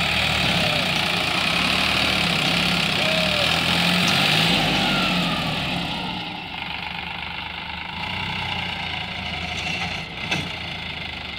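Sonalika DI-35 tractor's diesel engine running hard while the tractor is stuck in loose gravel, with a strong hiss over it for about the first six seconds, then easing to a lower, steadier run. A single sharp click about ten seconds in.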